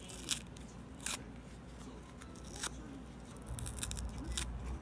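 Foam sponge being torn apart by fingers: short, crisp crackling rips, a few spaced about a second apart, then a quick run of tears near the end.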